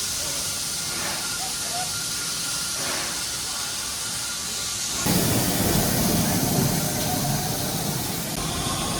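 Steam locomotive hissing steam steadily while standing. About five seconds in, the sound changes abruptly to a louder hiss with more low rumble underneath.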